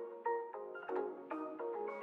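Background music: a light melody of short, bright struck notes, a few to the second.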